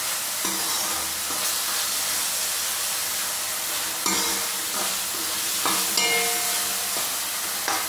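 Chopped tomatoes sizzling steadily in hot ghee in a metal kadhai as they cook down, stirred with a metal ladle that scrapes and knocks against the pan a few times.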